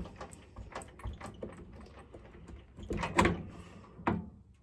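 Metal clicks, knocks and scrapes of hand work on a Homelite Super XL-130 chainsaw's cylinder end as it is taken apart in a vise, with a louder clatter about three seconds in and another knock about a second later.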